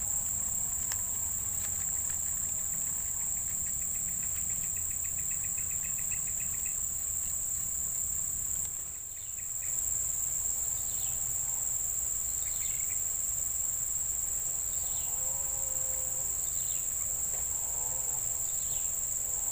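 Steady high-pitched drone of an insect chorus in swampy brush, with a short rapid trill a few seconds in and brief falling chirps about once a second in the second half.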